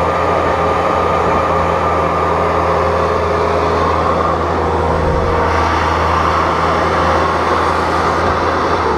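Bobcat S250 skid steer's diesel engine running steadily under load while pushing heavy wet loam, with a steady whine over the engine note. The sound brightens a little about halfway through.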